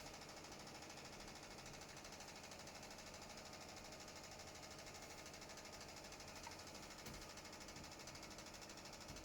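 Miele washing machine on its spin cycle: a faint, steady whirring with a fast, even pulse.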